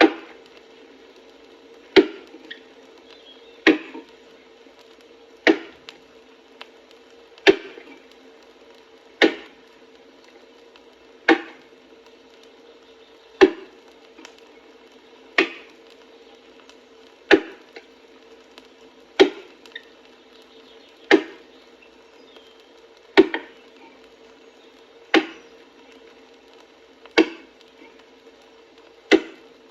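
Axe chopping into a tree trunk, one sharp stroke about every two seconds, over the steady hiss and hum of an old record.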